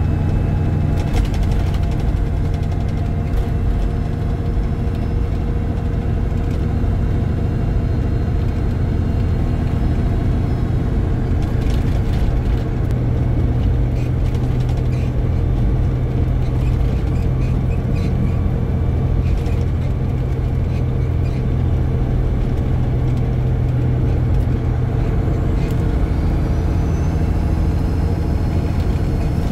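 A car driving, with a steady low engine hum and road noise and a few faint clicks.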